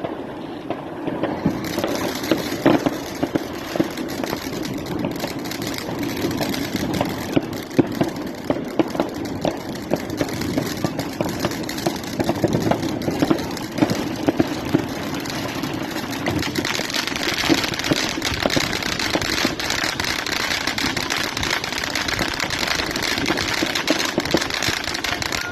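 Fireworks going off in a dense, continuous crackle of rapid pops, with louder bangs scattered through.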